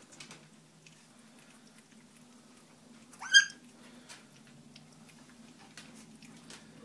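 West Highland white terrier puppies eating from a shared plate, with faint scattered clicks. About halfway through, one puppy gives a single short, high yelp that rises in pitch.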